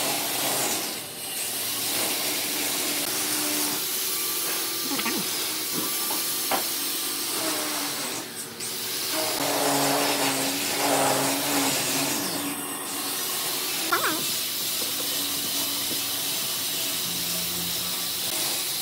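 A steady high hiss with short breaks about a second in, at around eight seconds and again near thirteen seconds, over a faint low hum, with a couple of small ticks.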